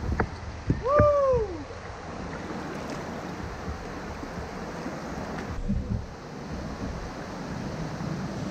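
Kayak paddling over steady moving-water hiss, with a couple of sharp paddle knocks near the start and a few low thumps a little past halfway. About a second in, a short tone falling in pitch is the loudest sound.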